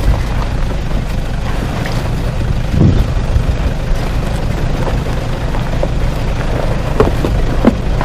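A 4x4's diesel engine running steadily, with a few short knocks and clunks.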